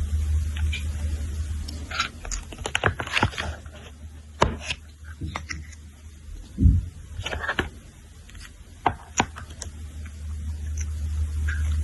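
A string of sharp clicks, taps and short scrapes from objects being handled, with one heavier thump about six and a half seconds in, over a steady low hum.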